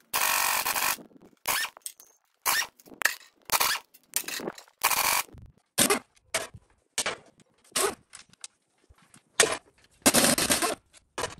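Impact wrench hammering in about a dozen short bursts, the first about a second long, as it runs bolts out of the front pump of a 4L60E automatic transmission during teardown.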